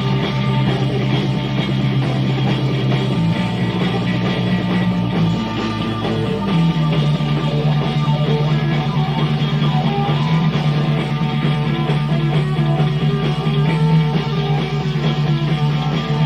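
Live rock band playing an instrumental passage, with electric guitar over a bass line of held low notes that change pitch twice early on.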